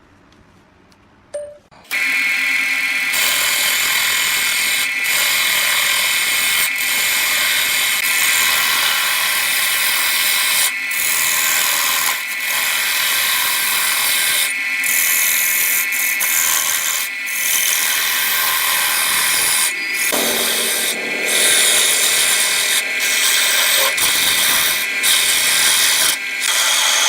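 Wood lathe starting up about two seconds in after a click, then running with a steady high whine while a turning tool cuts the spinning wood, the hissing cut breaking off briefly again and again.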